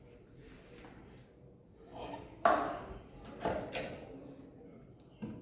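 A few sudden knocks and scrapes of parts and tools being handled during disassembly of a washing machine. The loudest comes about two and a half seconds in, two more follow about a second later, and a short one comes near the end.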